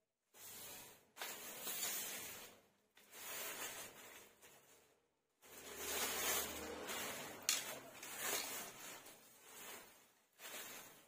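Rustling handling noise as a fishing rod is picked up and handled, in several stretches of a second or two each, with one sharp click about seven and a half seconds in.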